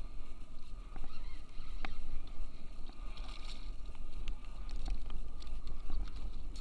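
Water slapping against a kayak hull under a steady wind rumble on the microphone, with a few sharp clicks and knocks as gear and a fish are handled on the boat.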